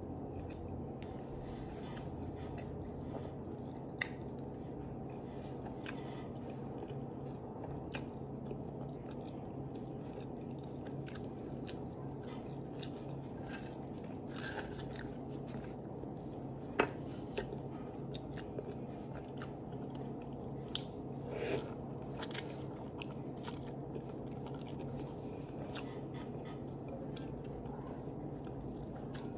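A person chewing and biting into a chicken avocado sandwich close to the microphone, with many small mouth clicks and a sharp click about 17 seconds in, over a steady low hum.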